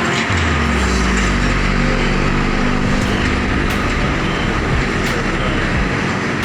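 A heavy vehicle's engine running close by, a steady low hum that comes in just after the start and fades near the end, over continuous road traffic noise.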